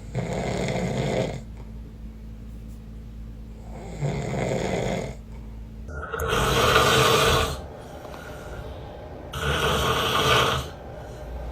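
A man snoring in his sleep: four long snores, each lasting a second or so, with pauses of two to three seconds between them. The third and fourth snores are the loudest.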